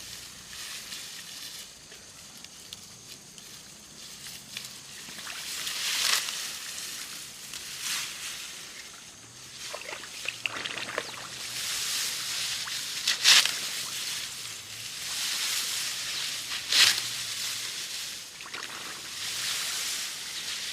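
Water sloshing and splashing, with a few louder splashes every few seconds over a steady hiss.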